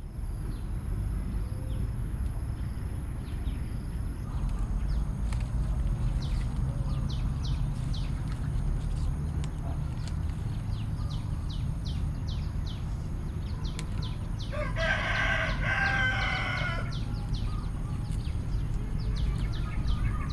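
A rooster crowing once, for about two seconds, a little after the middle. Under it run a steady low background, a thin steady high tone and a string of short high chirps.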